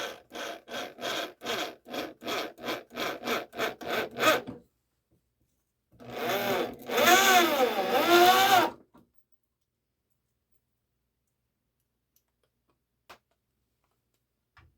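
Back-and-forth strokes of a hand tool working wood, about a dozen at roughly three a second. After a short pause comes a louder, denser burst of about three seconds with a wavering squeal in it.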